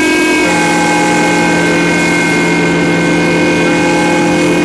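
Large steam whistles blowing a long, steady chord of several notes over a hiss of escaping steam; a deeper note joins about half a second in.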